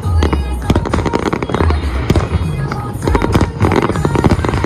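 Aerial fireworks shells bursting in quick succession, sharp bangs and crackles, over music with a deep bass.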